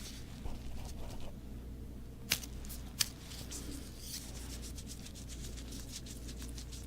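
Quiet handling sounds: light rustling with two sharp clicks less than a second apart, over a steady low hum.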